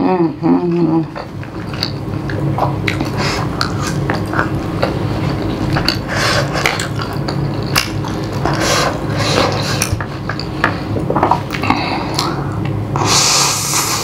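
Close-up eating sounds from a mouthful of spicy instant noodles: wet chewing and smacking clicks over a steady low hum, with a long slurp of noodles near the end. A wavering hummed "mmm" trails off about a second in.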